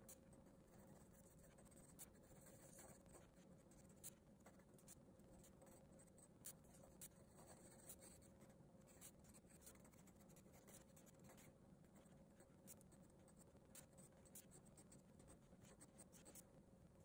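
Faint graphite pencil strokes scratching on paper as a border is shaded, with scattered light clicks.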